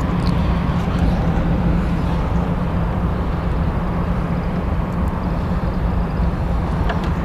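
Steady wind noise on the microphone: a low, unbroken rumble with a faint hiss over it.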